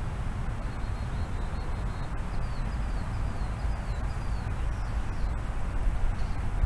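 Outdoor background: a steady low rumble of open-air noise, with a series of faint, short, high bird chirps about two to five seconds in.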